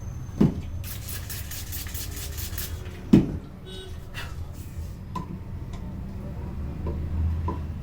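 Hands working over a head during a massage: two dull thumps about two and a half seconds apart, with fast rubbing through the hair between them and a few small clicks later, over a steady low hum.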